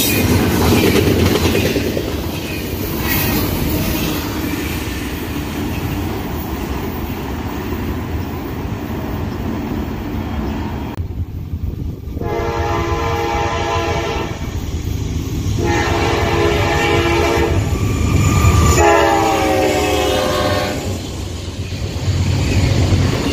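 Double-stack intermodal container cars rolling past close by, a steady rumble of steel wheels on the rails. After a cut, a freight locomotive's multi-chime air horn sounds three long blasts as it approaches a grade crossing, then the rolling noise of passing cars returns near the end.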